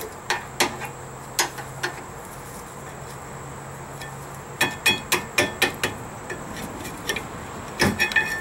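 Metal clicking and clinking as a screwdriver pries the rear brake pads out of the caliper bracket. There are scattered taps, then a quick run of ringing metallic clinks about halfway through and another cluster near the end.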